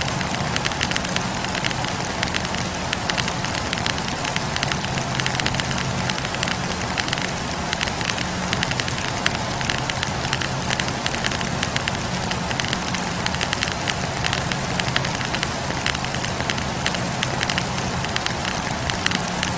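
Wood campfire burning, the logs crackling with a dense, continuous patter of small pops over a steady hiss of flame, with a faint steady low hum underneath.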